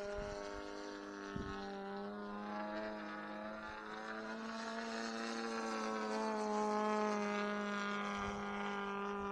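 DA-120 twin-cylinder two-stroke gas engine and propeller of a large RC aerobatic plane running steadily in flight, heard from the ground as a distant, even drone. It swells louder and shifts slightly in pitch about two-thirds of the way through.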